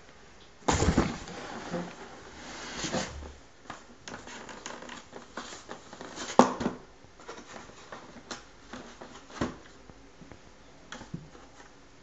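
Irregular rustling, scraping and knocking of a cardboard box and a paper packet being moved about, with a loud burst of rustling about a second in and a sharp knock about halfway through.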